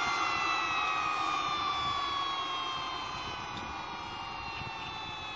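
Handmade jet engine winding down: its compressor whine of several tones falls steadily in pitch over a rush of air, and the whole sound slowly fades.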